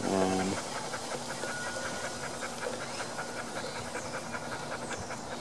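Close, steady breathing while a screwdriver slowly backs out the air cleaner cover screw on a Honda mower engine, with a fast, even high ticking underneath.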